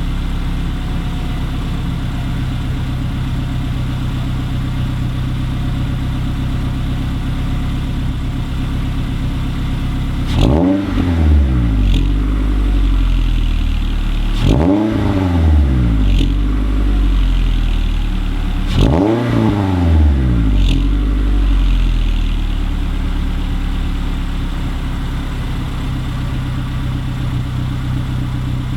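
2016 Scion tC's 2.5-litre four-cylinder engine idling steadily through its axle-back exhaust, revved three times about four seconds apart, each rev rising and falling back to idle. A few short sharp clicks come between the revs.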